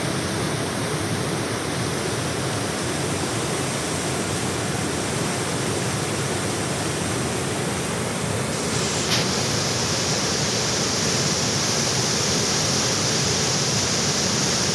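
Jägala waterfall's water falling and rushing, a steady loud roar of noise. About nine seconds in there is a short click, and after it the hiss sounds brighter.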